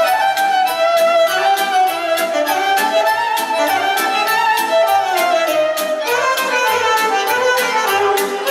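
Live Romanian folk dance music: violin and saxophone play a lively melody over a steady, quick percussion beat and a pulsing bass line.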